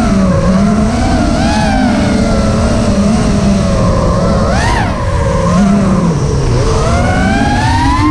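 FPV quadcopter's brushless motors and propellers whining, the pitch rising and falling with the throttle, with a sharp spike about four and a half seconds in and a long climb near the end.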